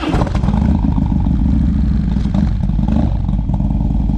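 Harley-Davidson Low Rider S Twin Cam 110 V-twin engine, just fired up on its push-button start and running at a steady idle with a deep, even rumble.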